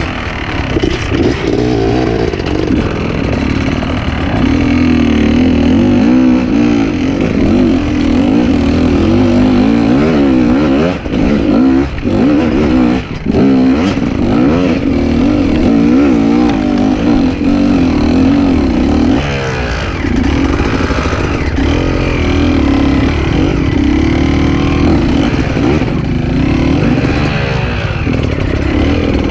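Enduro dirt bike engine running under constant throttle work, its revs rising and falling continuously, with two brief drops in level about eleven and thirteen seconds in.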